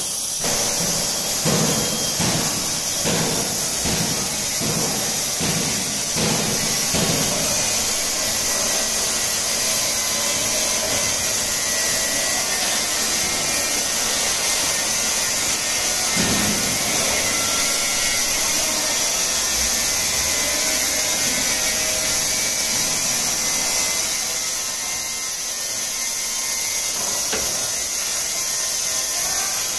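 Rotary rinsing-filling-capping monoblock for 5- and 10-litre bottles running: steady machine noise with a constant high hiss, and a run of regular knocks, about two a second, over the first several seconds.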